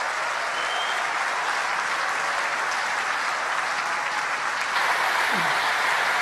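Large audience applauding, the clapping growing louder about five seconds in.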